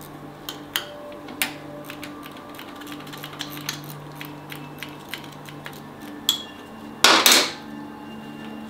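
Metal hand tool clicking and clinking while the shifter arm lock bolt on a Harley-Davidson V-Rod is worked loose with a wrench. The clicks are scattered and uneven, with one louder, brief rattle about seven seconds in.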